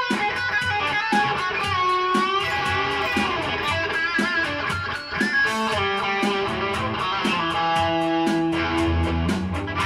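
Electric guitar playing an instrumental lead break, its notes bent and wavering, over a steady beat.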